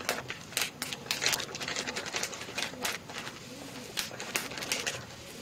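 Frying pan of oil and onion juice sizzling, with irregular sharp crackles, as curry powder is shaken in from a crinkling plastic packet.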